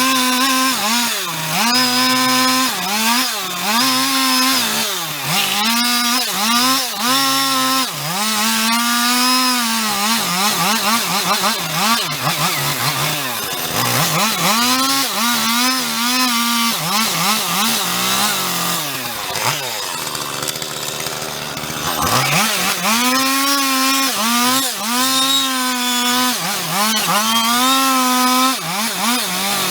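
Husqvarna 450 Rancher two-stroke chainsaw cutting wood, its engine revving up and dropping back over and over, easing off briefly about twenty seconds in.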